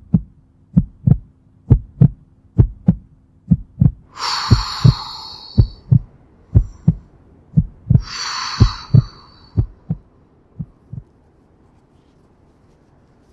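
Heartbeat sound effect: paired lub-dub thumps about once a second, slowing a little and stopping about eleven seconds in. Two long, slow breaths come over it, one about four seconds in and one about eight seconds in. A faint low hum runs under the first four seconds.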